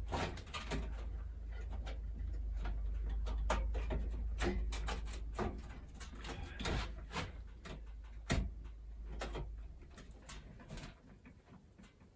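Irregular clicks, knocks and light scrapes as a motherboard is handled and pushed down onto its standoffs in a PC case, over a low rumble that fades out about three-quarters of the way through.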